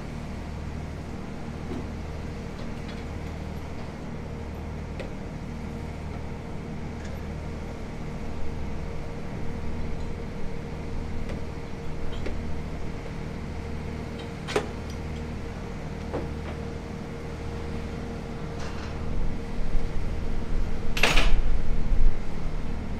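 A heavy engine running steadily, with a few sharp metal knocks and a louder short burst of noise near the end, amid funfair ride assembly.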